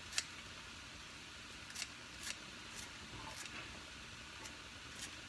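Kitchen scissors snipping fresh cilantro stems and leaves: faint, crisp snips, about six of them at uneven intervals.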